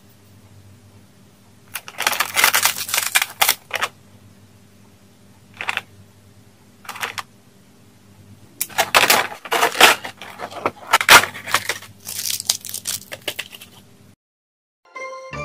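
Packaging being handled and unwrapped, crinkling and rustling in several bursts: one stretch about two seconds in, two short ones around six and seven seconds, and a longer one from about eight and a half seconds. The crinkling stops near the end.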